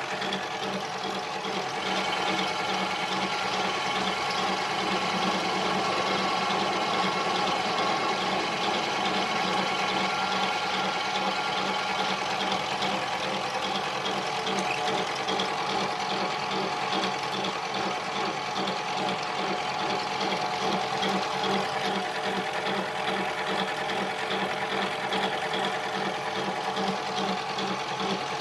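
Harbor Freight mini lathe running steadily while taking a facing and turning cut on aluminum stock: a continuous mechanical whine of several tones with a fast, even ripple, a little higher-pitched from about two seconds in.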